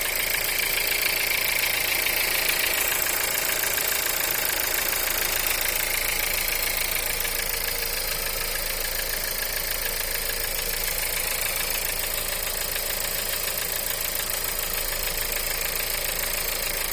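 1.4 TSI EA211 four-cylinder turbo petrol engine idling cold with a fast, steady knock: the cold-start knock of this engine. It gets slightly quieter after about eight seconds.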